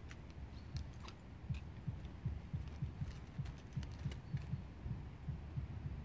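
Soft low thuds several times a second in an irregular rhythm, with a few faint, short, high bird chirps over the woodland quiet.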